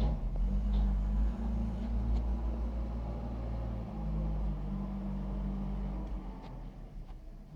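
JCB 3DX backhoe loader's diesel engine running steadily under work, a low rumble with a few faint ticks, easing off slightly near the end.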